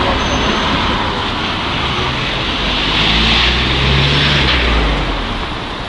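Street traffic noise: a motor vehicle going past, its engine hum and tyre noise swelling in the middle and fading toward the end.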